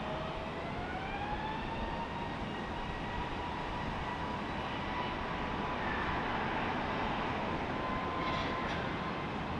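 Jet airliner engines running over a steady rush, their whine rising in pitch over the first two seconds as the engines spool up, then holding steady.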